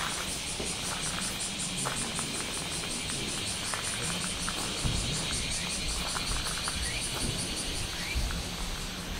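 Insects singing in a steady chorus, a high trill that pulses fast and evenly, over a constant high hum.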